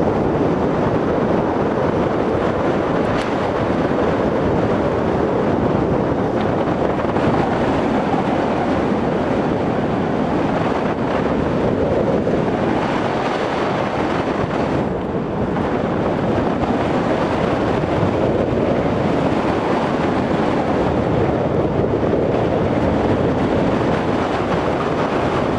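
Steady rush of wind buffeting the microphone on a hang glider in flight.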